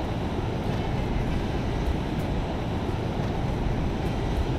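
Steady low rumble of wind buffeting the microphone on an open boat, with no engine tone or voices in it.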